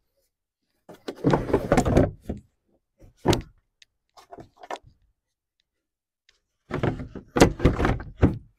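Plastic coolant overflow tank scraping and knocking against its mounts as it is worked down into its slots in the engine bay, in two scraping bursts of about a second each with a sharp knock between them.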